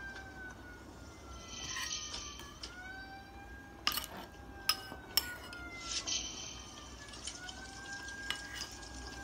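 A siren wails in slow sweeps, falling and rising in pitch every four to five seconds. Over it, a metal spoon clinks sharply against a ceramic bowl three times in the middle.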